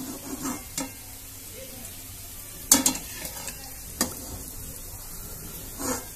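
Hot ghee frying with a soft steady sizzle in a metal kadhai, broken by a few sharp clicks of a metal slotted spoon and spatula knocking against the pan and each other as fried thekua are lifted out. The loudest clicks come nearly 3 seconds in and about 4 seconds in.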